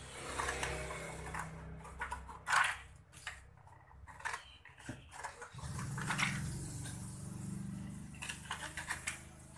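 Scissors snipping through paper in a run of short cuts, the sharpest about a third of the way in. A low steady hum comes in about halfway through.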